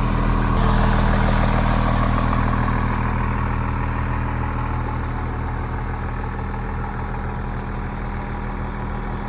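Diesel engine of a 40-foot diesel-pusher motorhome running at low speed while the coach is manoeuvred, a steady low drone. Its louder mid-range noise eases off over the first few seconds.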